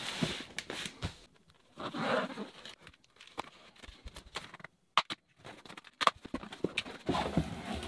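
Corrugated cardboard shipping box being handled: slid across a cloth-covered surface and its top flaps pulled open, giving irregular scrapes, rustles and knocks, with a sharp click about five seconds in.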